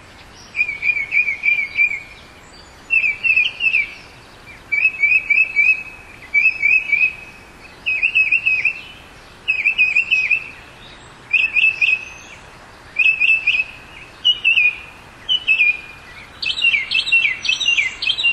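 Northern mockingbird singing: a string of short phrases, each a quick run of repeated, similar notes, with brief pauses between phrases, over a steady faint background hiss.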